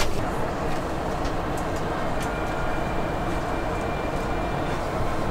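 Steady airliner cabin noise inside an Airbus A380: an even low rush of air and machinery, with a faint thin high tone briefly in the middle.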